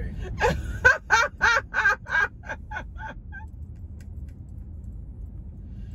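A person cackling with laughter, about ten quick bursts that fade out by about three seconds in, over the steady low road rumble inside a moving car.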